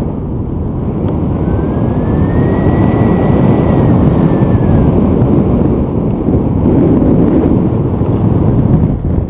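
Wind buffeting the camera microphone in paraglider flight, a loud steady rush of low noise. A faint high whistle rises and then falls in pitch from about one and a half to five seconds in.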